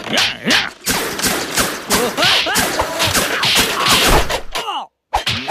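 Cartoon fight sound effects: a rapid string of whooshes, thuds and whacks as VHS tapes are swung and thrown, mixed with wordless shouts and grunts from the fighters. It all cuts off abruptly to a moment of silence near the end.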